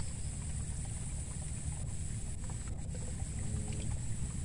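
Outdoor ambience beside a small ditch: a fluctuating low wind rumble on the microphone under a steady high hiss.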